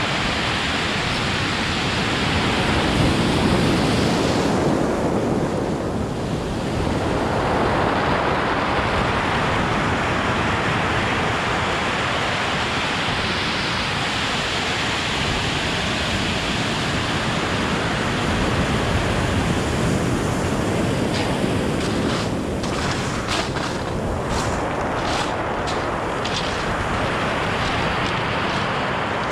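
Ocean surf breaking and washing up a pebble beach in a steady rush, with some wind on the microphone. Near the end, a run of short sharp clicks sounds over the surf.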